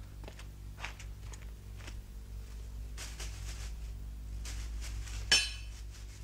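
Soft, spaced footsteps of someone creeping on hard ground over a low steady hum, with a few soft rustles. About five seconds in comes a sharp, short clatter, the loudest sound here.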